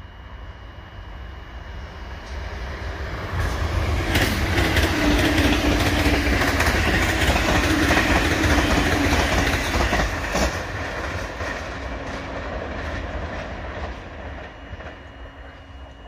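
JR East E353 series electric limited-express train passing close by. The sound builds as it approaches, is loudest for several seconds in the middle with a quick run of clicks from the wheels, then fades as the train draws away.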